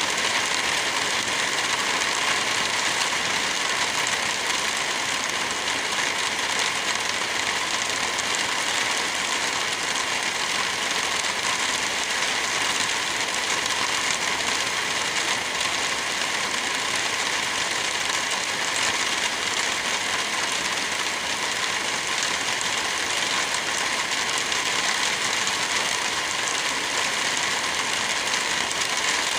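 Wind blowing through forest trees with light rain falling, a steady even hiss that does not change.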